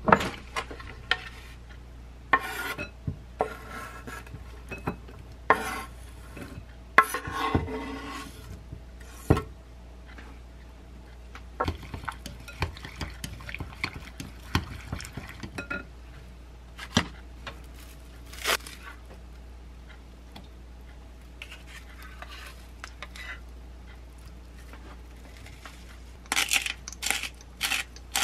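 Wooden chopsticks stirring and clinking against a glass mixing bowl, working shredded zucchini, potato and shrimp into beaten egg. Near the end comes a quick run of ticks as a pepper shaker is shaken over the batter.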